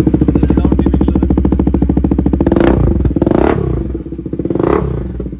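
Bajaj Pulsar NS400's single-cylinder engine running through an aftermarket SC Project exhaust with a lot of bass. It idles with a steady beat and is revved briefly twice, about halfway through and near the end.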